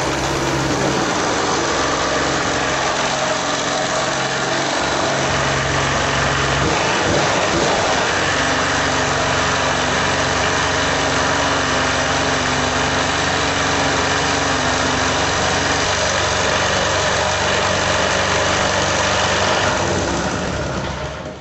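Small single-cylinder air-cooled generator engine running steadily, freshly rebuilt with a new piston and rings. It dies down near the end.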